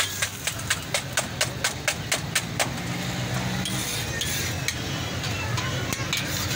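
Eggs being beaten by hand in a steel bowl: the utensil clinks against the metal in a quick, even rhythm of about four strokes a second, stopping about two and a half seconds in. After that, steady background noise with a low hum.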